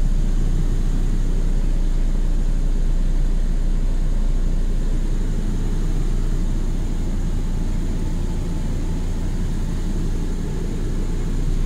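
Audi R8's 5.2-litre V10 engine idling steadily, heard from inside the cabin.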